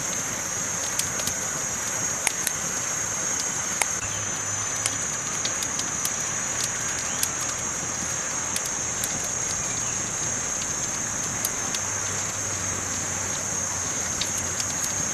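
Campfire burning, with irregular sharp crackles and pops from the wood over a steady hiss and a constant high-pitched tone.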